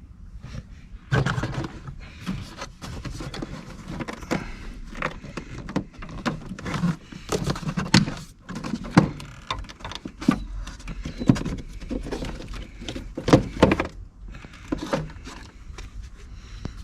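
Irregular clatter of car parts being handled: sharp clicks, knocks and rattles coming at uneven intervals, over a low steady rumble.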